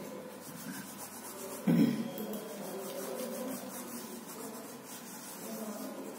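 Red pencil scratching across sketchbook paper in repeated strokes as lines are drawn, with one short, loud thump a little under two seconds in.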